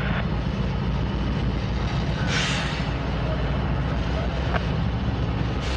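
Norfolk Southern diesel locomotives running as they pull a train across a steel truss railroad bridge, a steady low engine drone throughout, with a short hiss about two seconds in.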